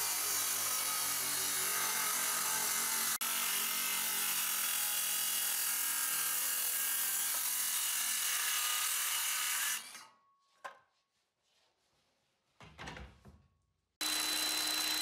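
Handheld circular saw cross-cutting a sheet of 3/4-inch Baltic birch plywood along a clamped straight edge, running steadily for about ten seconds, then stopping and winding down. A few faint knocks follow, and near the end another power tool starts running with a steady hum.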